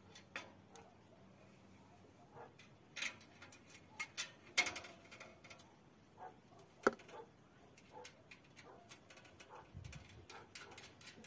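Scattered clicks and knocks of rabbit-cage parts being handled during assembly. The sharpest knocks come about four and a half and about seven seconds in.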